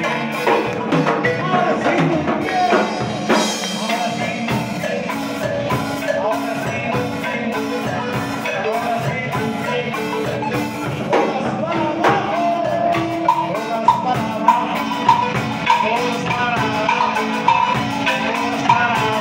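Live band music: a traditional wooden marimba played by two players with mallets, with a drum kit keeping the beat behind it.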